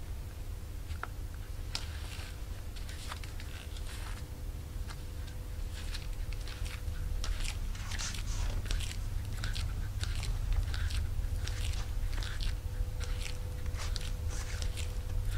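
Footsteps of Pleaser Amuse-10 5-inch stiletto-heel sandals walking on carpet: irregular soft, crunchy scuffs that come thicker from about halfway, over a low steady hum.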